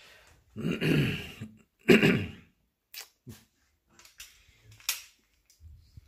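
Two short vocal sounds near the start, the second louder, then a scatter of light clicks and taps as a pair of plastic sunglasses is picked up off a table and put on.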